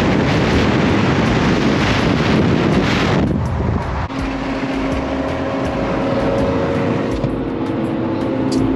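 Loud wind and road noise from a vehicle moving at freeway speed. About three seconds in it drops away, and after a brief break a few steady held tones come in one after another over quieter noise.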